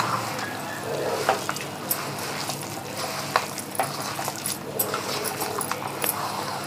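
A hand mixing grated raw mango with salt and red chilli powder in a stainless steel bowl: a steady rustling with irregular clicks and taps of fingers against the steel.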